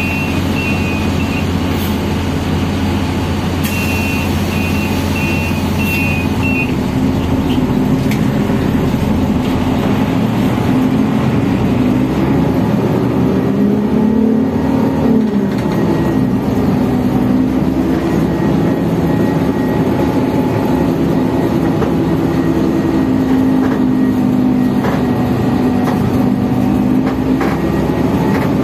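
Transjakarta bus heard from inside the cabin: two runs of short electronic warning beeps in the first several seconds, typical of the doors closing at a stop, over the engine's steady low running. Then the engine pulls away, its pitch rising and falling as the bus gets under way.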